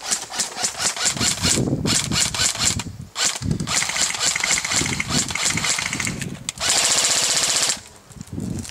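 Rapid crunching steps through dry forest leaves and brush, about five a second, then at around seven seconds a loud one-second full-auto burst from an airsoft electric gun that cuts off sharply.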